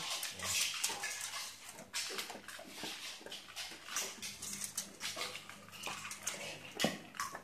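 Dog eating dry kibble from a metal bowl: irregular crunching and small clicks, with one louder knock near the end.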